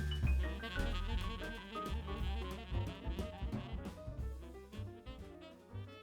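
Background music in a jazz style, with melody notes over bass and drums, fading out toward the end.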